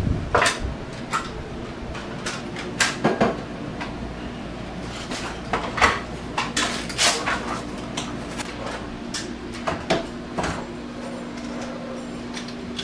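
Irregular knocks, clicks and clatters, like objects being handled, over a steady low hum.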